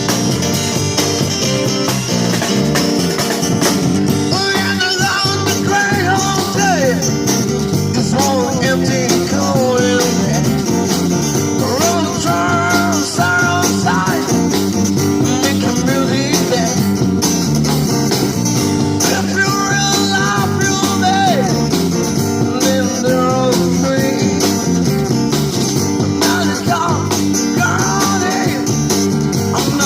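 A busker band playing live amplified music: guitars, with a voice singing the melody.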